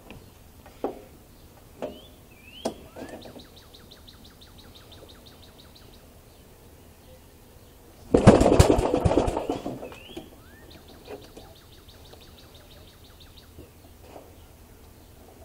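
A loud rattling burst of about two seconds, about eight seconds in, that fades away: a pull-start attempt on a small engine. Before and after it a bird sings a fast trill twice, each time with a rising note first, and there are a few sharp clicks early on.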